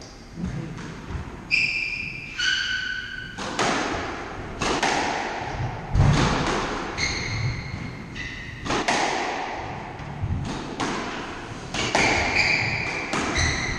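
Squash rally: the ball cracking off the rackets and the walls about once a second, with shoes squeaking in short high chirps on the wooden court floor.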